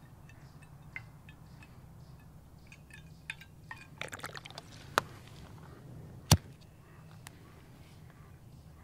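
Alcohol fuel squirted from a squeeze bottle into the titanium burner cup of a Vargo Triad stove: faint drips and trickling with small light ticks. Two sharp metallic taps come near the middle, the louder one about six seconds in.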